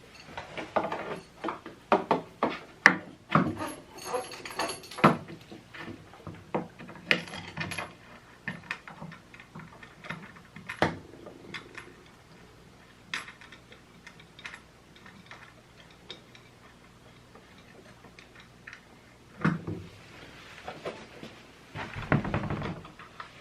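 Irregular clicks, taps and knocks of hard parts being handled as PVC pipe spacers, threaded rods and wing nuts are fitted to mount a sewing machine's flatbed attachment. The knocks come thick and fast for about the first eleven seconds, then only now and then.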